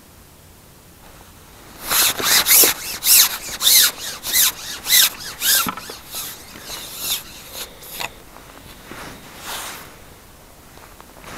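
A carbon fishing pole being shipped out, rubbing against hands and jacket sleeves, making a series of short rasping strokes, two to three a second for about four seconds, then a few fainter ones.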